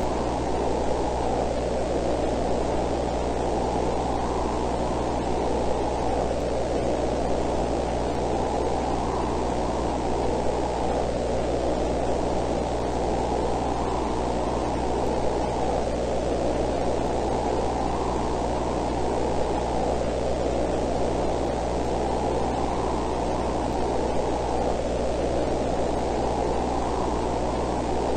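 Steady, dull static noise with a low hum underneath, swelling gently every few seconds.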